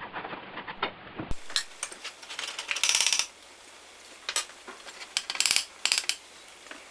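Spoon stirring a thick bean mixture in a pot, clinking and scraping against the pan in irregular clicks, with two denser scraping bursts about three and five and a half seconds in.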